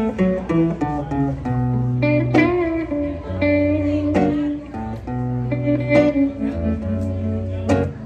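An electric guitar and an acoustic guitar playing together through stage speakers, with picked notes over held low notes and no singing.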